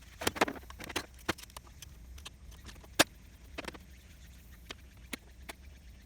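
Irregular clicks and knocks, like hand tools and parts being handled, a cluster near the start and the sharpest one about three seconds in.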